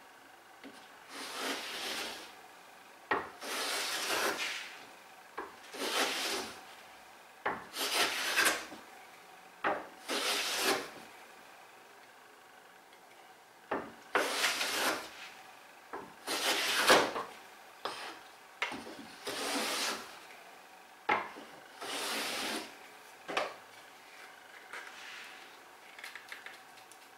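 Quangsheng No.62 low angle jack plane pushed along a wild-grained softwood board in about a dozen strokes, each a rasping hiss of the blade lifting a shaving. Several strokes start with a sharp knock, and there is a pause of about two seconds near the middle. The plane is tearing out the difficult grain.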